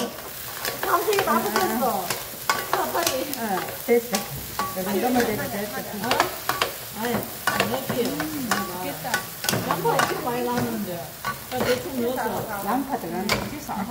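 Two wooden spatulas stir-frying sausages and vegetables in a frying pan: a steady sizzle with repeated scraping and clacking against the pan.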